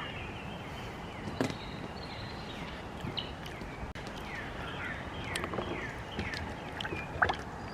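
Birds calling: a steady series of short, downward-sliding chirps, with a few light knocks in between.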